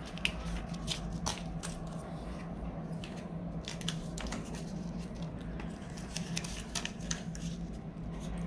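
Banknotes and clear plastic binder envelopes being handled: crinkly rustling and many short, irregular clicks and ticks as notes are picked up, shuffled and slid into the pouches.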